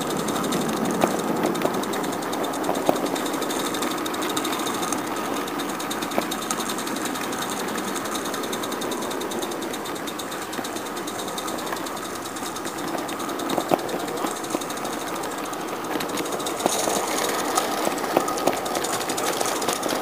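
Roundhouse Elsa live-steam garden-railway locomotive running under steam, its exhaust beating in a rapid, even chuff, with a few sharper clicks along the way.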